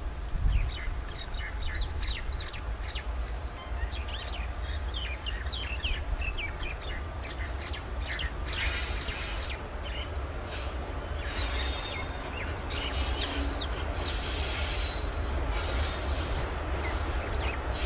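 Birds chirping, then from about halfway through a train approaching on the rails: repeated bursts of high hissing, squealing wheel-on-rail noise that grow a little louder toward the end.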